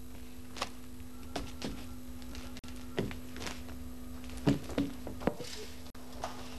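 Steady low electrical hum with a scattering of short knocks and clicks, like handling and movement noise picked up by the studio sound.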